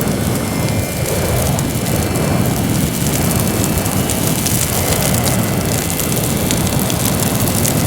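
Fire burning with a steady rush and dense crackling.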